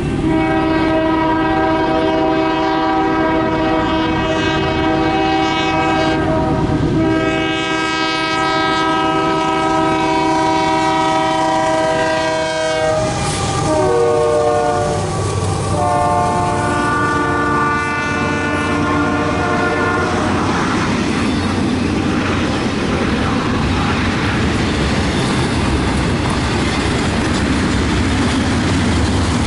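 Union Pacific diesel locomotive's air horn sounding long multi-note blasts as the intermodal train comes up, its pitch dropping about 13 to 14 seconds in as the locomotive passes. The horn stops about 20 seconds in, leaving the steady rumble and clickety-clack of double-stack container cars rolling by on the rails.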